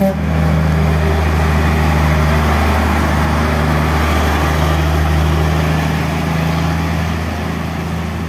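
Diesel engine of a Kato multi-axle truck-mounted crane running as it drives past, a steady low drone that eases slightly near the end.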